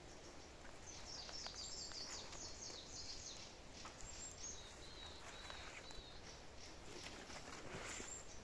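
Small songbird singing in the trees: a rapid run of high, thin notes for a couple of seconds, then a few short high notes about five seconds in, over quiet forest background.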